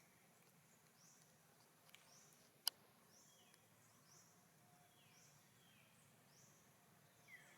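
Near silence with faint animal chirps: short falling calls repeating evenly about once a second. A single sharp click comes a little before the middle.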